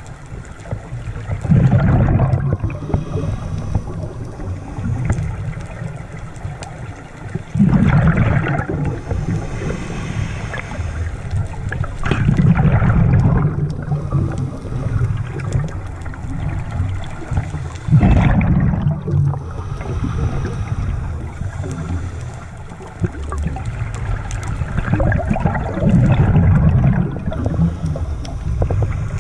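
Scuba diver's exhaled bubbles from the regulator, heard underwater: a gurgling burst of about two seconds every five to six seconds, five times, with a lower steady rumble of water between breaths.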